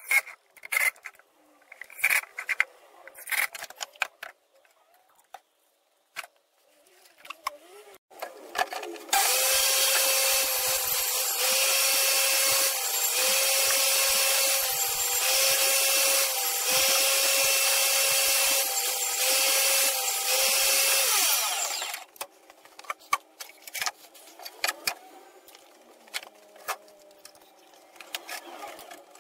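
Benchtop table saw running and cutting a plywood sheet: the motor starts about nine seconds in, runs loud and steady with a whine that dips briefly several times as the board is fed, and stops about thirteen seconds later. Clicks and knocks of handling come before and after it.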